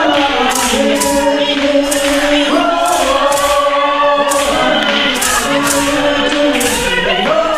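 A group of young voices singing together in chorus without instruments, holding long notes that move between pitches, over a steady beat of handclaps about twice a second.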